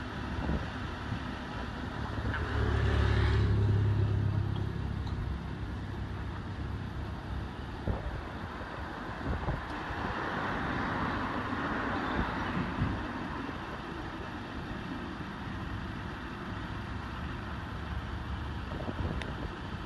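Outdoor roadside background noise, with a motor vehicle's low engine rumble passing about three seconds in, the loudest sound here, and a softer rush of passing traffic a little later.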